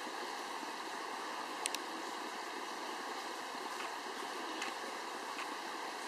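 Shallow forest creek running with a steady rushing hiss, broken by a few faint sharp ticks, the clearest a quick pair about a second and a half in.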